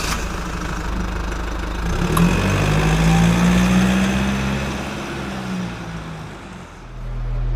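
Vehicle engine running, its pitch rising about two seconds in, holding, then easing off and fading near the end.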